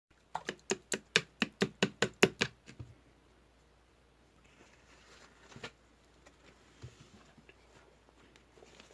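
A quick run of about a dozen sharp knocks, roughly five a second, lasting a little over two seconds, followed by a few faint scattered clicks.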